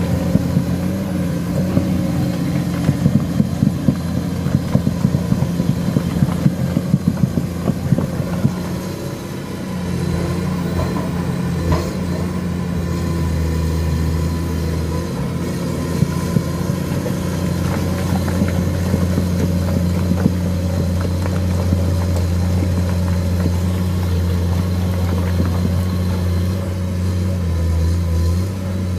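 Komatsu PC210 excavator's diesel engine running steadily under load as the machine tracks through thick mud, towing steel material. A dense rattle of sharp clicks and clanks runs through the first nine seconds or so, then the engine drone carries on more evenly.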